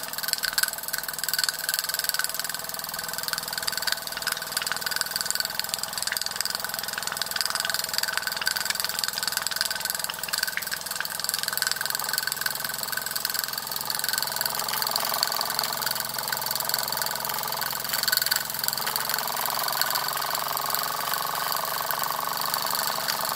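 Latimer L5 toy steam engine running steadily in steam, its small cylinder and flywheel making a fast, even ticking patter. It runs smoothly and is getting into its stride.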